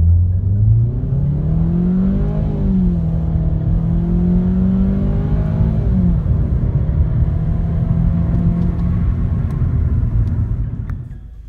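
2012 Ford Focus SE's 2.0-litre four-cylinder engine at full throttle, heard from inside the cabin: the revs climb, drop at an upshift about two and a half seconds in, climb again and drop at a second upshift about six seconds in, then run on steadily before easing off near the end as the run finishes.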